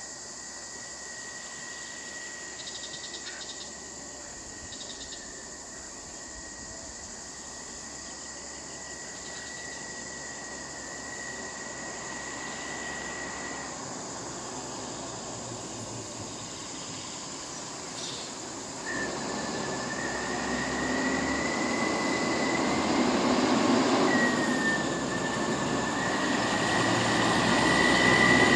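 A steady high insect drone, then in the last third a diesel bus approaches and grows steadily louder, its engine noise building under a high squeal that wavers up and down.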